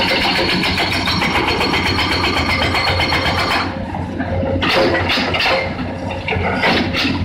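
Hydraulic rock breaker on a Caterpillar excavator hammering boulders in rapid, even blows over the excavator's diesel engine. The hammering stops about halfway through, leaving the engine running. It then restarts in short bursts near the end.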